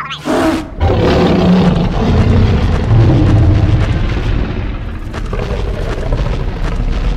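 A short swish right at the start, then a loud, deep rumbling sound effect that eases off a little after about five seconds.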